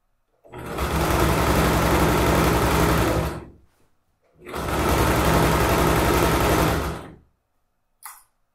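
Domestic electric sewing machine running at speed, stitching fabric in two runs of about three seconds each with a short stop between. A brief click near the end.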